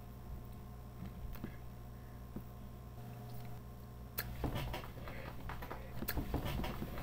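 Low steady hum of room tone with a few faint clicks. About four seconds in, irregular rustling and scraping starts and grows louder as a plush hand puppet is handled and pushed up against the webcam.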